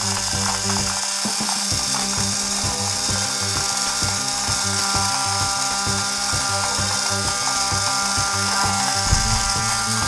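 Battery-powered toy iron's small motor running, with a steady fast rattle of polystyrene beads blown around inside its clear tank.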